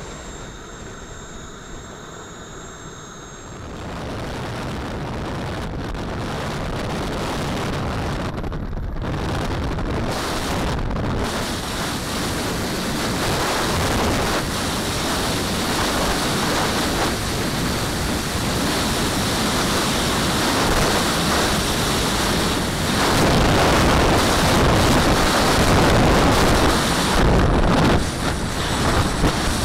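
Wind rushing and buffeting over the microphone of a camera mounted on a fast-moving giant RC jet model, a steady rushing noise that grows louder from about four seconds in, dips briefly near the end, then picks up again.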